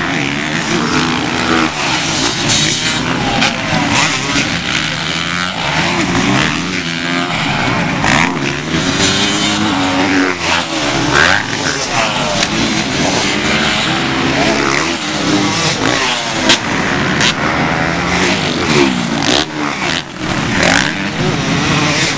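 Several four-stroke motocross bikes racing on a dirt track, engines revving up and falling back over and over as they accelerate out of turns and over jumps; one bike passes close about twelve seconds in.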